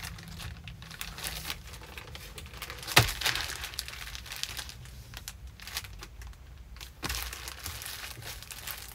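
Clear plastic bag crinkling and rustling as clothing is packed into it, in irregular crackles, with one sharp knock about three seconds in.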